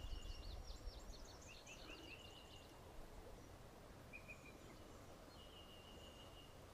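Faint outdoor birdsong: a rapid run of high chirps through the first two seconds or so, then two short trills later on, over a low steady rumble of background noise.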